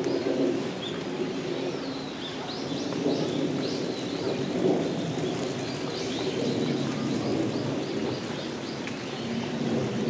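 A stream flowing steadily with a continuous low rush of water, and small birds giving a run of short, high chirps from about two to five seconds in.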